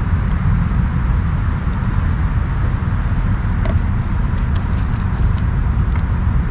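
Steady low outdoor rumble with a few faint small clicks.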